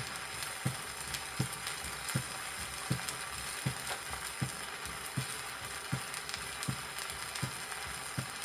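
Recorded heartbeat played from an old vinyl record: a low thump about every three quarters of a second, about 80 beats a minute, over steady surface hiss and crackle. It is the auscultation example of mitral stenosis heard over the pulmonary artery, where the second heart sound is accentuated.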